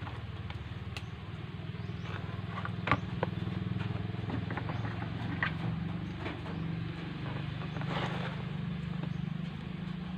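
A steady low motor drone, like an idling engine, runs under scattered sharp clicks and cracks from a large spiny lobster's hard shell being handled and cut; the sharpest crack comes about three seconds in.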